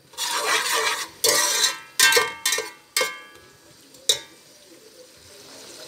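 A metal slotted spoon scraping and knocking against a metal cooking pot while sliced onions are stirred in hot oil: about half a dozen sharp, ringing clanks over a few seconds, with a soft sizzle of the frying oil underneath that carries on after the stirring stops.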